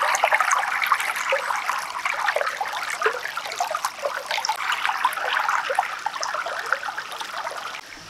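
Low, shallow creek trickling: a steady babble of small, irregular splashes of running water.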